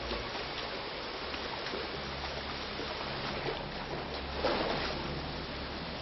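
Water rushing steadily out of a large storm-drain pipe, with a louder surge about four and a half seconds in and a low steady hum underneath.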